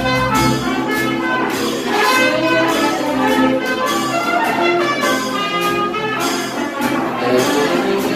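Jazz music led by brass horns, playing continuously as dance music.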